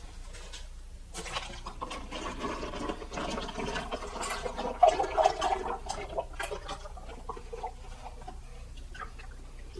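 Engine oil being poured and glugging for about five seconds, then a few light knocks.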